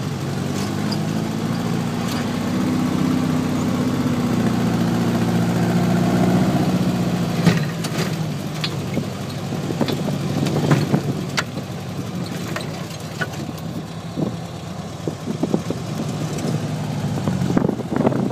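Dune buggy's engine running under way across sand, its pitch climbing gradually for the first six seconds or so and then easing off. Scattered sharp knocks and rattles come in the second half.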